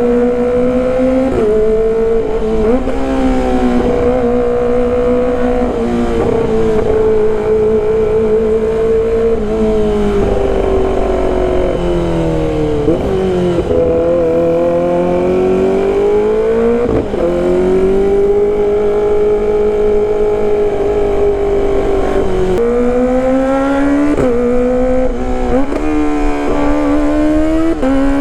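Kawasaki ZX-25RR's 250 cc inline-four running under way through a loud aftermarket exhaust. It holds high revs, and the pitch drops and climbs again several times as the rider changes gear and rolls the throttle on and off.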